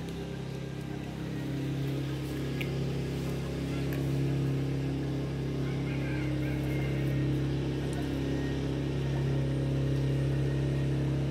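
Steady low mechanical hum, unchanging throughout, with a few faint clicks.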